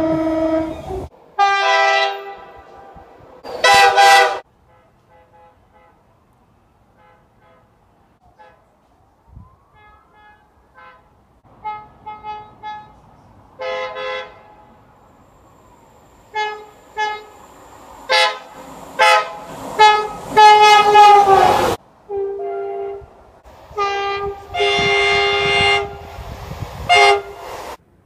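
Train horns sounding a series of blasts, many of them two-tone, some faint and distant and others loud and close. A long loud blast about 20 seconds in sags in pitch as the train passes and cuts off suddenly.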